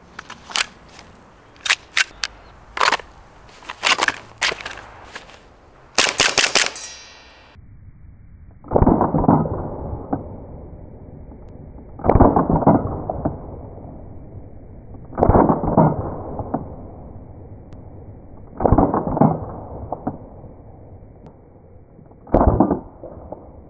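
Carbon8 M45CQP CO2 blowback airsoft pistol firing a series of sharp shots, ending in a quick string of several. After that come five slowed-down, muffled shot sounds a few seconds apart, each drawn out to about a second, as the slide cycles in slow motion.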